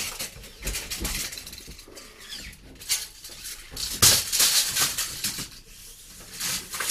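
Rustling, scraping and light clattering of electrical cable being pulled and handled, loudest from about four seconds in.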